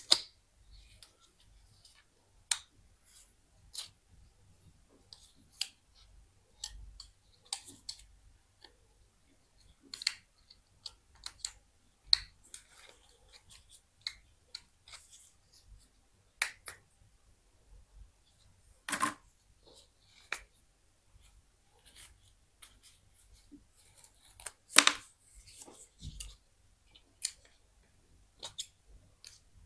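Small tools and plastic and metal parts of an old ZTE mobile phone clicking and snapping irregularly while it is taken apart, with two louder snaps, one past the middle and one near the end.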